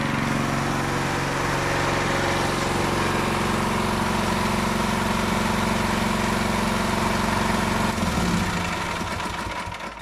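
Ayerbe 2,800 W petrol generator's 208 cc engine running steadily. About eight seconds in, its tone wavers and the sound dies away over the last two seconds as the engine is shut off and runs down.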